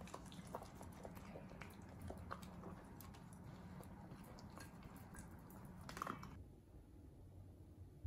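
A whippet in a plastic cone crunching dry kibble from a ceramic bowl, a faint run of scattered crisp chewing clicks. The sound cuts off about six seconds in, leaving quiet room tone.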